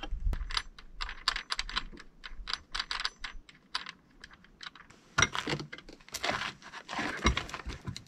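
Rapid, irregular small metallic clicks and ticks of a hand tool and loose bolts as the plastic shipping supports are unscrewed from the base of a Champion 4500 inverter generator. From about five seconds in, louder scraping and rattling bursts.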